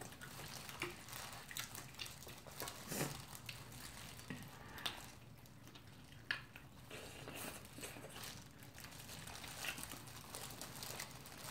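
Faint eating sounds of two people eating fried chicken by hand: chewing, mouth smacks and short crunches at scattered moments, with the crinkle of disposable plastic gloves.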